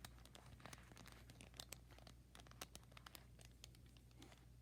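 Faint, scattered clicks and scrapes of plastic Rubik's Cube pieces being handled and fitted back together.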